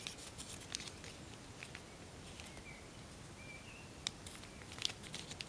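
Tissue foil crinkling and clicking faintly as fingers shape a folded origami model, with a couple of sharper clicks about four and five seconds in.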